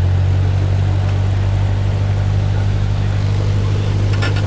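Single-engine light aircraft's propeller engine running steadily with a deep, even drone, heard inside the cabin. A few brief clicks near the end.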